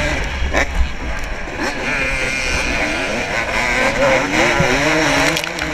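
Dirt bike engines revving hard, their pitch rising and falling as the riders accelerate and shift, with a low rumble of wind on the microphone in the first second.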